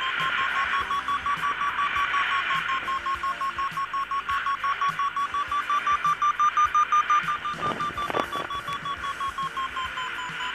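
Paragliding variometer beeping in a fast, even train of short tones, its pitch rising a little about six seconds in and easing down again near the end. This is the instrument's climb signal: the glider is going up in rising air.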